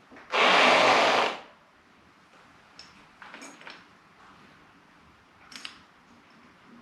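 A loud burst of noise from a workshop tool lasting about a second, then a few light clicks of metal parts being handled.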